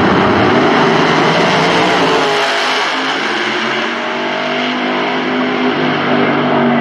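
Two Pro Nitrous drag cars, nitrous-fed V8 door slammers, running at full throttle down the drag strip. A dense, loud roar thins after about two seconds as the cars pull away, leaving a pitched engine note that slowly rises.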